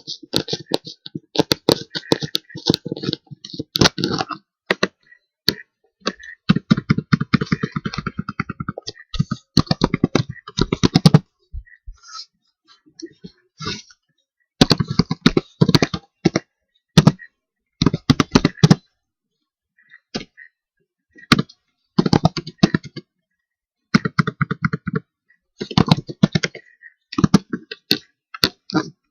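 Computer keyboard typing in bursts of rapid keystrokes, with short pauses between them.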